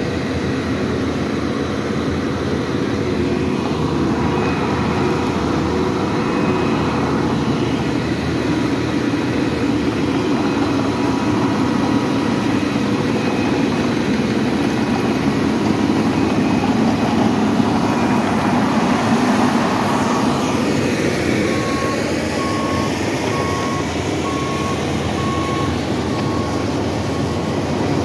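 Heavy road-work machinery running steadily, a loud diesel din. From about three-quarters of the way in, a reversing alarm beeps about once a second.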